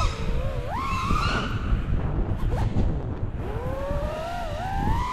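FPV racing quadcopter's brushless motors whining with throttle, the pitch sweeping up in the first second or so, dipping, then climbing steadily through the last couple of seconds, over a low rumbling noise.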